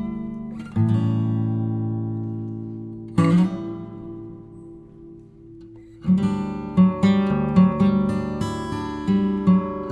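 Background music on acoustic guitar: strummed chords left to ring, then a busier run of plucked notes from about six seconds in.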